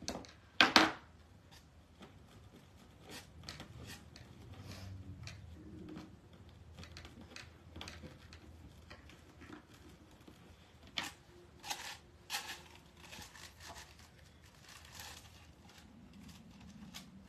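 Plastic deco mesh crinkling and rustling as it is handled and scrunched, with scattered sharp clicks, the loudest just under a second in.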